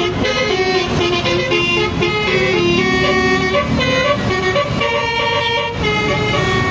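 Indonesian 'telolet' multi-tone bus horn playing a tune: a run of held notes stepping up and down in pitch over a low rumble.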